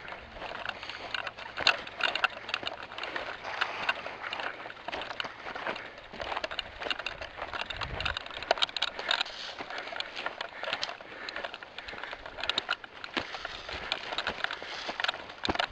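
Steady, irregular crunching and crackling of footsteps through dry brush and twigs.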